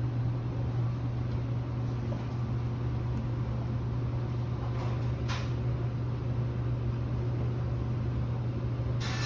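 Reach-in cooler's refrigeration unit running after being switched on, with a steady low hum. Two short rushes of noise come about five and nine seconds in.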